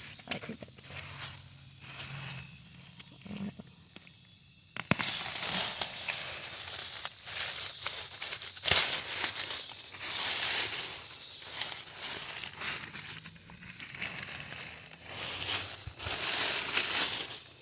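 Leafy vegetation rustling and crackling as it is pulled and handled by hand, irregular and uneven, growing louder and denser about five seconds in.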